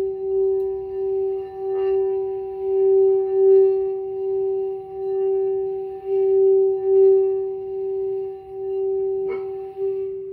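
Singing bowl held ringing on one steady tone with an overtone above it, its loudness swelling and fading about once a second. Two light knocks come about two seconds in and near the end. It is played with gloved hands, which makes it a little bit muffled.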